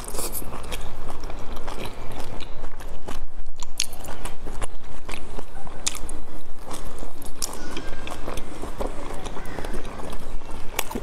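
Close-up chewing and biting of boiled dumplings: wet mouth sounds with many irregular sharp clicks, over a low steady hum.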